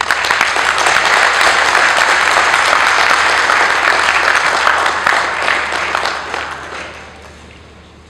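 Audience applauding, dense and steady at first, then dying away over the last two or three seconds.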